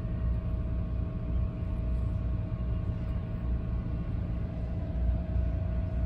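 Steady low background rumble with a constant mid-pitched hum running through it.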